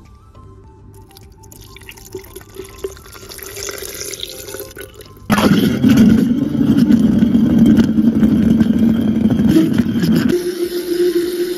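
Liquid pouring into a blender jar, growing louder. About five seconds in, the blender motor switches on suddenly and runs steadily, churning strawberries, milk and ice. Near the end its hum steps up to a higher pitch.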